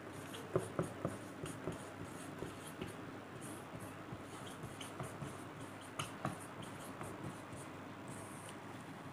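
Marker pen writing on a whiteboard: a run of short scratchy strokes and taps as letters are drawn, the sharpest taps about half a second to a second in and again around six seconds.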